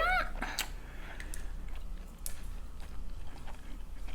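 A person chewing chicken wings close to the microphone, with scattered wet mouth clicks and smacks. A brief rising vocal 'mm' fades out right at the start.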